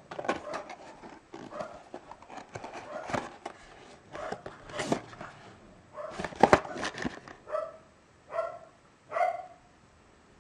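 Small cardboard box being torn open along its perforated strip and its flap pried open: crackling tears, rustles and sharp clicks of the card. Near the end come three short pitched sounds, each less than half a second, about a second apart.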